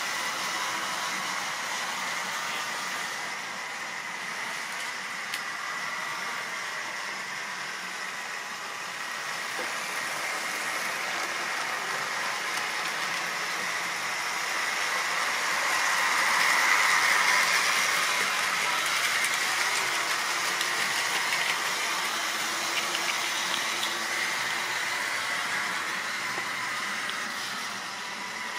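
Model railway train running around the layout, a rake of tank wagons rolling along the track with a steady whirring rush of wheels and motor. It grows louder about halfway through as the train passes close, and a few light clicks come later.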